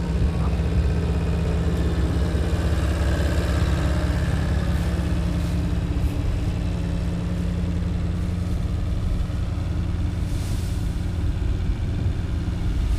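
Truck engine running steadily with a low, even hum.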